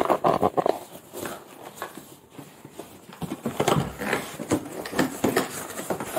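Handling noise from unboxed riding gear and its cardboard shoe box: irregular taps, knocks and rustles, with a busy run near the start and more in the second half.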